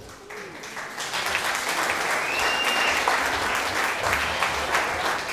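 Audience applauding, swelling about a second in into steady clapping, with one short high whistle near the middle.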